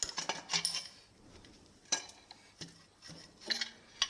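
Metal engine parts clinking and knocking as they are handled, with about six separate sharp clinks spread over the seconds.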